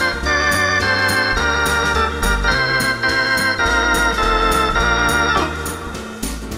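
Two-manual electronic organ playing a pop medley, with held chords over a bass line and a steady percussion beat. The held chord drops out about five and a half seconds in, leaving a quieter passage.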